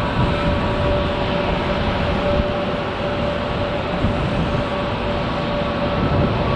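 Jet engines of an Airbus A319-112 (CFM56 turbofans) running as the airliner lands: a steady rumble with a steady whine on top.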